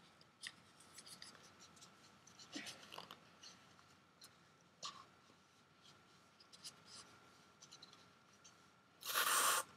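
Faint rustling and handling sounds, then near the end a short hiss of under a second from a LYNX Dry aerosol antiperspirant can sprayed onto an underarm.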